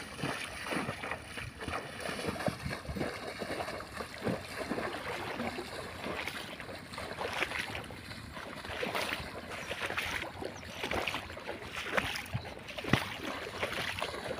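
Shallow water splashing and sloshing in irregular bursts as a large snakehead is hauled in through the weedy shallows, with wind on the microphone.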